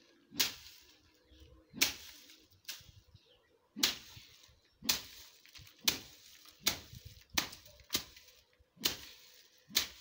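A long thin stick beating a heap of well-dried bean plants, threshing the beans out of their pods by hand. About eleven sharp strikes, roughly one a second.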